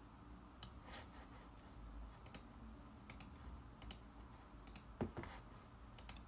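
Faint, sparse clicks of a computer mouse, several in quick pairs, as items are selected in an editing program. A slightly louder short soft sound about five seconds in.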